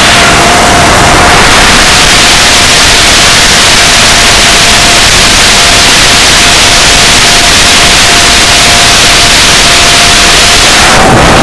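FPV quadcopter's motors whining at a steady pitch under loud, even hissing noise on the onboard microphone. Near the end the whine rises briefly, then drops.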